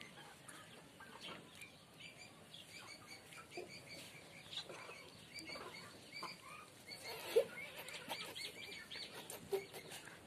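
Chickens clucking and chirping softly, with many short high chirps scattered throughout and one louder call about seven seconds in.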